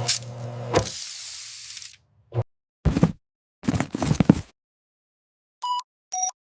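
Machinery running with a steady hum and two knocks, stopping about two seconds in. Then a few short clattering sounds, and near the end two short electronic beeps, the second lower in pitch.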